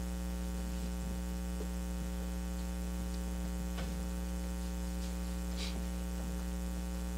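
Steady electrical mains hum with its evenly spaced overtones, unchanging throughout. A few faint soft knocks and rustles, and a brief soft hiss about two-thirds of the way through.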